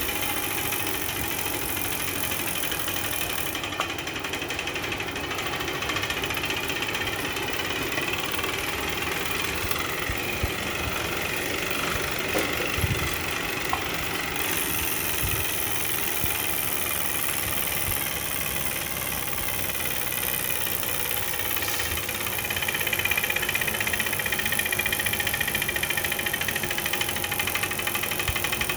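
JetBlack Victory direct-drive smart trainer running under pedalling and making an abnormal mechanical noise, a fault the owner puts down to a common problem with a spring production batch. The noise gets louder about three-quarters of the way through.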